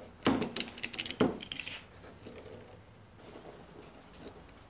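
Utility knife blade cutting excess fiberglass screen mesh along a screen frame's spline, making a quick run of sharp scratchy snicks. The cuts are loudest in the first couple of seconds, then fainter.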